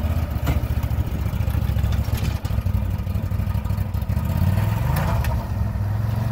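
Can-Am Maverick XMR 1000R side-by-side's V-twin engine running at low revs as it rolls down aluminium ramps off a trailer, with a few sharp knocks along the way and a brief rise in revs about five seconds in.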